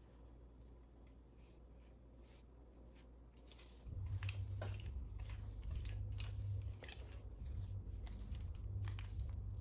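Sharp little clicks and hair rustling as a curling iron is clamped and slid along strands of hair. A low hum comes on suddenly about four seconds in.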